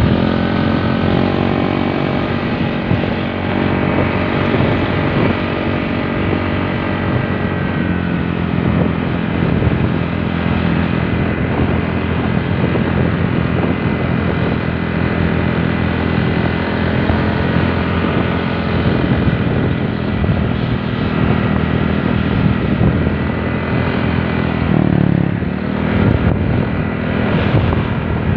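Motorcycle engine running under way with road and wind noise. The engine note climbs in the first couple of seconds, then dips and climbs again near the end.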